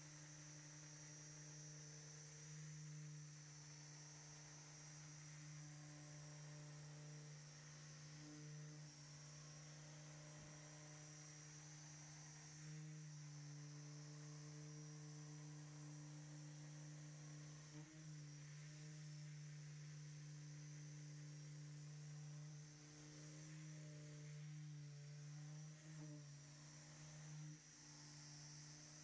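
Electric car polisher running steadily, heard only faintly as a low, even hum.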